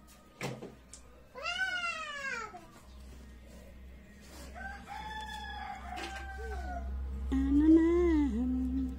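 Three drawn-out, wavering animal calls: a falling one early, a higher, flatter one midway, and the loudest, lowest one near the end. A low steady hum comes in about a third of the way through.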